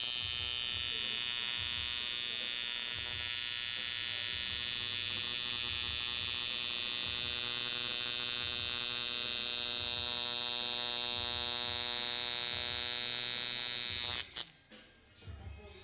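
Coil tattoo machine buzzing steadily while in use on skin, cutting off suddenly near the end.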